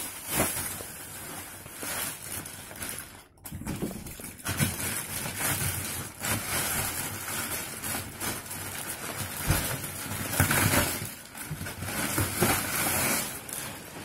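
Clear plastic wrapping crinkling and rustling as it is handled and pulled off a hard-shell suitcase, with a short break about three seconds in.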